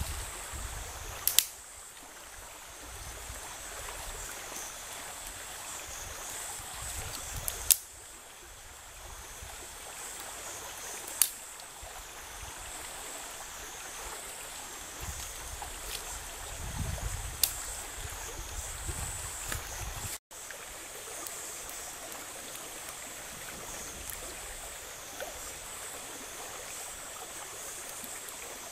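Shallow creek water running over rocks, a steady rushing hiss, with a high buzz that wavers up and down above it. A few sharp clicks stand out, about four in all.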